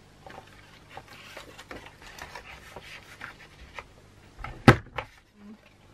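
Cardstock rustling and sliding as it is lined up in a Stampin' Up Trio corner punch, then one sharp click as the punch is pressed down and cuts the paper, near the end.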